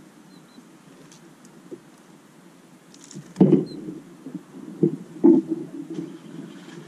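Small birds' wings fluttering close to the microphone at a seed feeder: low rumbling with three loud thumps in the middle, and a couple of faint, short high chirps.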